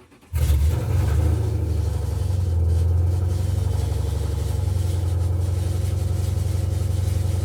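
A 2000 Ford SVT Mustang Cobra R's 5.4-litre V8 starts up: after a brief faint crank it catches a moment in, flares briefly, then settles into a loud, steady idle.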